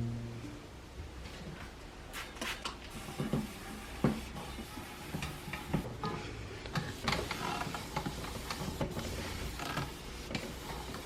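Irregular small clicks, taps and scraping sounds of objects being handled, spaced unevenly through the stretch, over a low steady hum.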